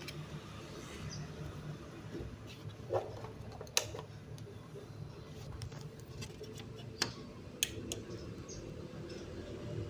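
A low steady hum with a few sharp clicks and taps scattered through it, about four in all.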